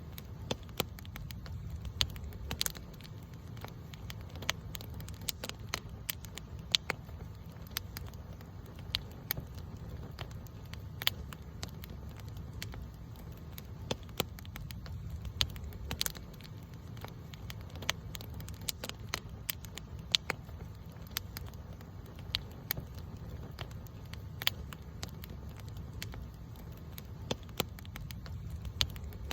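Campfire burning and crackling, with irregular sharp pops and snaps over a low steady rumble.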